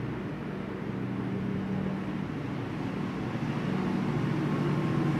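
A steady low mechanical hum with a rushing noise over it, slowly growing louder.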